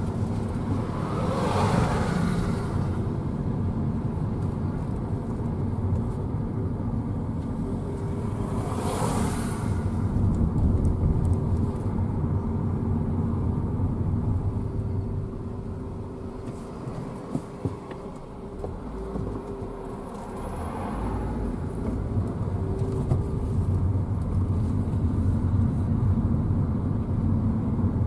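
Car engine and tyre noise heard from inside the cabin while driving, a steady low rumble. Two brief whooshes come about a second and nine seconds in, and the noise drops for a few seconds past the middle before building again.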